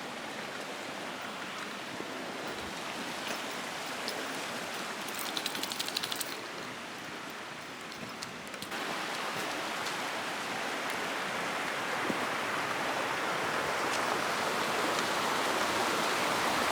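Creek water rushing over rocks below a small waterfall, a steady hiss that steps up just before nine seconds in and keeps growing louder as the falls gets nearer. A short run of light ticking shows around five to six seconds in.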